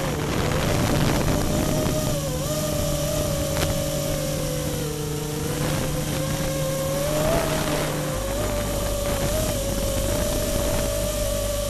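FPV quadcopter's motors and propellers whining in flight, the pitch drifting gently up and down with throttle, with a dip about five seconds in.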